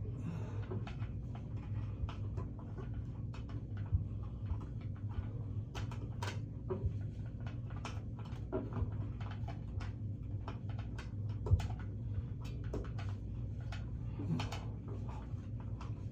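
Light clicks and taps of a new shower head being handled and threaded by hand onto a Teflon-taped shower arm, a few sharper knocks among them, over a steady low hum.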